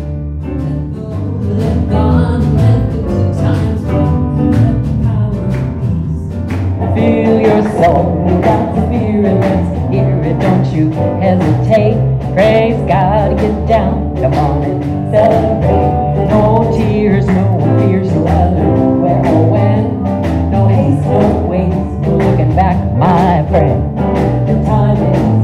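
Live band playing an upbeat song, with a woman singing into a microphone from about seven seconds in.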